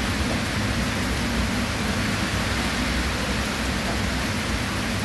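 Steady rain falling: an even hiss with a low rumble beneath it.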